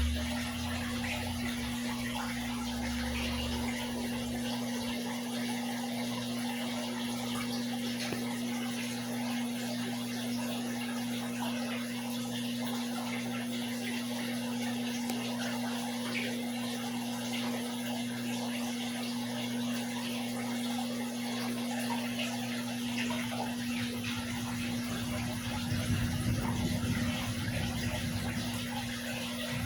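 Aquarium water bubbling and splashing steadily over a constant hum from the tank's electric pump. A low rumble swells near the end.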